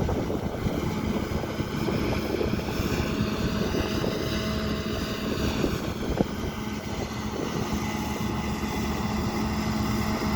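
Combine harvester running steadily while harvesting, a continuous machine drone with a steady hum, and a single sharp knock about six seconds in.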